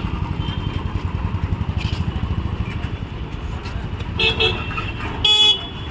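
Street traffic: a motor vehicle engine, likely a motorcycle, runs close by with a fast, even pulse, and a vehicle horn honks briefly about four seconds in and again, louder, near the end.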